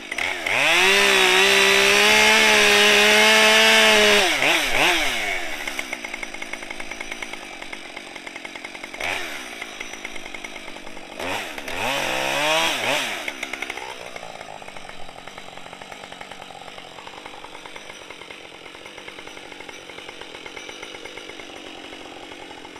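Husqvarna 550 XP two-stroke chainsaw held at full throttle for about four seconds, then let off and revved up and down a few times, before settling to a quieter idle for the last several seconds.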